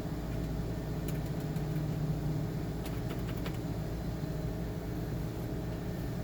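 Steady low hum with a few faint clicks, about one second in and again around three seconds in: computer keyboard keys being pressed without response, the keyboard dead after the USB bus shorted out.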